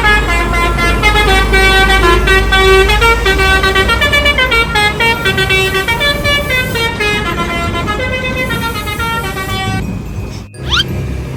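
Telolet basuri bus horn, a set of multi-tone air horns, playing a stepping melody over a steady low rumble. It cuts off suddenly near the end, followed by a short rising sweep.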